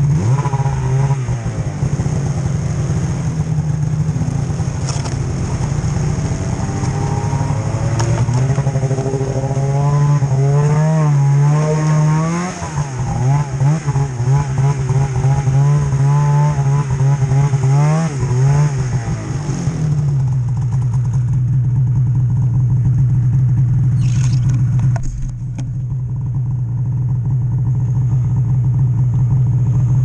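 Polaris snowmobile engine running under the rider, its revs rising and falling repeatedly through the middle, then settling to a steady lower drone about two-thirds of the way through.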